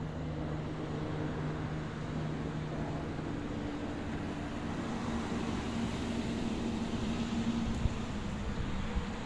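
Steady background noise with a low, engine-like drone whose pitch shifts slightly over the seconds.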